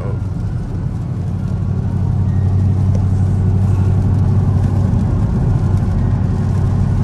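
Steady in-cabin drone of a Chevrolet Camaro ZL1 cruising at about 58 mph on a wet highway: a low, even hum from the supercharged V8 and drivetrain under a haze of tyre and road noise.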